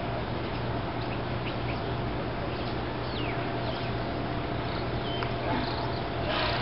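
Open-air ambience: a steady background hiss and a constant low hum, with a few short, faint bird calls, one of them a quick falling chirp about three seconds in.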